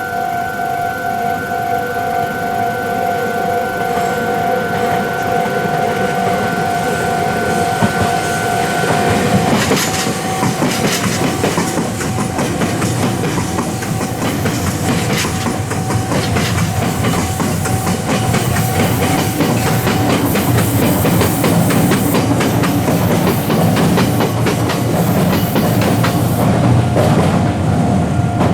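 Japanese level-crossing alarm bell ringing in steady repeated strokes; about nine seconds in, a Meitetsu electric train runs through the crossing, its wheels clattering over the rail joints, with the crossing bell still sounding faintly under the train noise.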